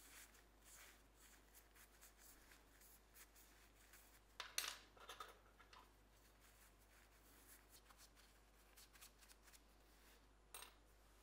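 Near silence with faint clicks of small parts being handled, a short cluster of them about four and a half seconds in and another click near the end.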